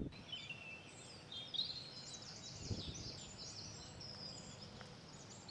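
Faint songbirds singing: many short high chirps and warbling phrases, overlapping, with no other sound standing out.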